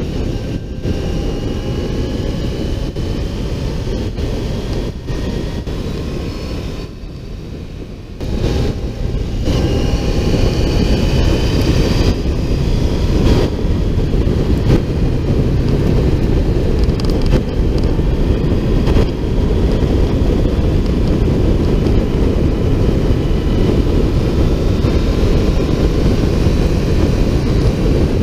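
Motorcycle running at road speed, heard from a camera on its fairing with heavy wind rush. The engine eases off briefly about seven seconds in, then accelerates again, its pitch rising in steps as it pulls through the gears.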